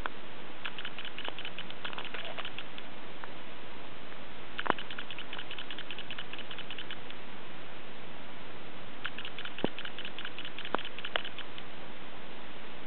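Pet rat making runs of rapid, light scratchy clicks, each lasting a couple of seconds, with a few separate sharp ticks between them, over a steady hiss.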